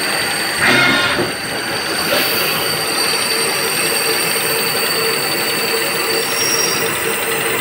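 CNC vertical machining centre running, with a steady high whine over continuous machine noise while a twist drill works on a copper flange. There is a louder rush about a second in, and from about three seconds on a lower steady tone joins as the drill reaches the workpiece.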